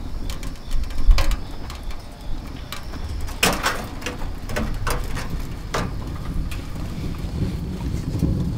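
Wood fire burning in a small homemade stainless-steel camp stove, with scattered sharp crackles over a low steady rumble.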